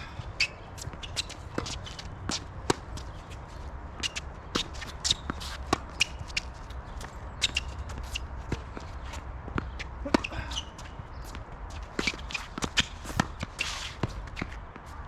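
Tennis play on court: a dense, irregular run of sharp footfalls, shoe scuffs and squeaks, with cracking ball strikes and bounces.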